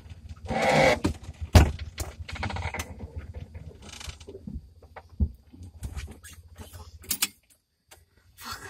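The vehicle's engine running at idle, heard from inside the cab as a low rumble with clunks and rattles from the cab, then cutting out about seven seconds in.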